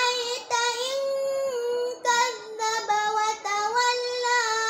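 A boy's high voice chanting Qur'an recitation in the murottal style, in long held notes that glide between pitches, with a few short breaks for breath.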